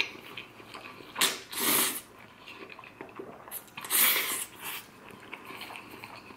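A person slurping and chewing mouthfuls of Filipino sweet spaghetti: two breathy slurps about a second in and another about four seconds in, with quiet chewing between.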